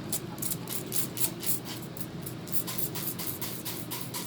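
Trigger spray bottle squirting water in quick repeated pumps, about three short hissing sprays a second.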